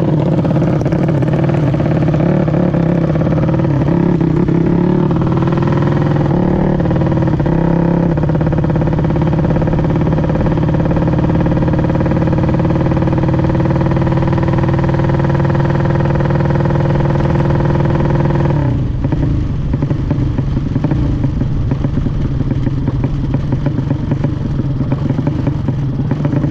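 Drag-racing motorcycle engine held at high revs, a loud steady note with small shifts in pitch. About two-thirds of the way through, the note breaks off into rougher, noisier running.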